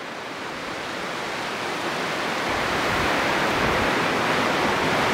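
Ocean surf breaking on a beach: a steady rush of noise that swells gradually louder.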